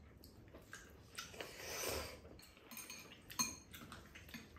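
Chopsticks clicking and scraping against ceramic bowls while noodles are eaten, with a sharp click about three and a half seconds in. A brief soft slurp of noodles comes about two seconds in.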